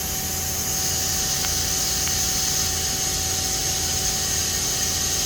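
Tsugami B0326-III CNC lathe running with a steady hum, joined about a second in by a high whine as its Y1 axis slide is driven down.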